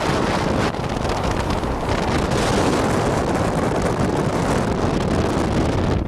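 Loud rushing wind and road noise of a moving car, buffeting the microphone. It drops away suddenly at the very end.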